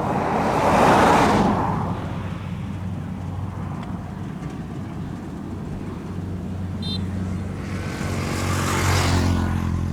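Kubota DC-70 combine harvester's diesel engine running steadily under load, with two louder swells of rushing noise, about a second in and near the end.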